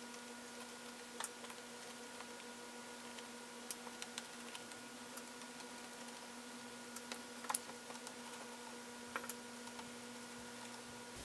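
Small, irregular clicks of a small Phillips screwdriver and tiny screws being taken out of a laptop's screen assembly, over a steady faint electrical hum.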